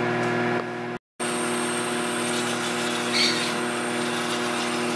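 Microwave oven running on high: a steady electrical hum, broken by a brief dropout about a second in, with a short hiss about three seconds in as moisture escapes through holes pierced in the cooking spaghetti squash.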